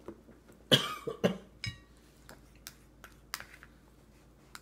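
A spoon clicking and scraping in a steel-lined baby bowl: a short ringing clink, then several light sharp taps spread out. The loudest sounds are two short cough-like bursts about a second in.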